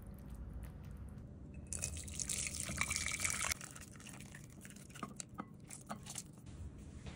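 Broth and cooked pumpkin slices poured from a pan into a glass bowl: a rush of splashing liquid for about two seconds, then a few drips and soft plops as the last pieces slide in.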